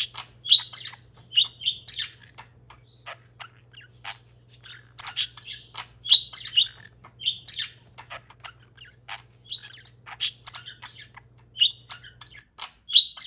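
Pet parakeet chirping: many short, quick chirps and squawks in irregular bursts, some louder and sharper than others.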